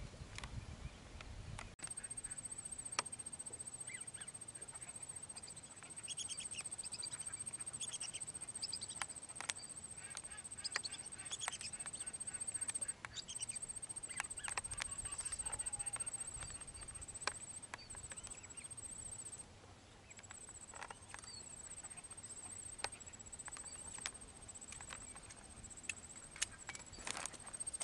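Lesser whistling ducks calling: short, high whistled notes in quick runs, faint and scattered, over a thin steady high tone.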